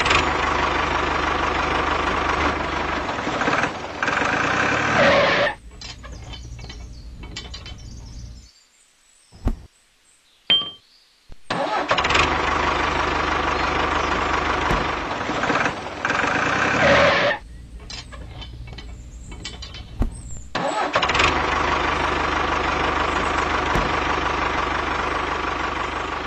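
Tractor engine running in three loud spells of five or six seconds, each dropping back to a quieter rumble; between the first two spells it goes almost silent for a few seconds, broken by a couple of clicks.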